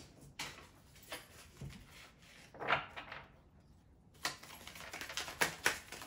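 Tarot deck being handled in the hand: scattered card clicks and slaps, one louder a little before three seconds in, then a quick run of clicking as the cards are flicked through over the last two seconds.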